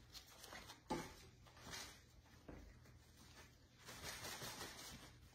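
Faint rustling of ribbon and wreath leaves being handled as a ribbon is threaded through a eucalyptus wreath, with a soft click about a second in; otherwise near silence.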